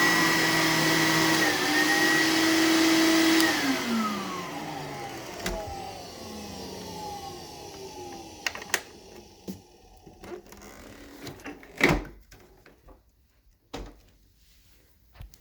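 Electrolux Discovery II upright vacuum running steadily, then switched off about three and a half seconds in, its motor winding down with a falling whine over several seconds. A few scattered clicks and knocks follow, the loudest about twelve seconds in.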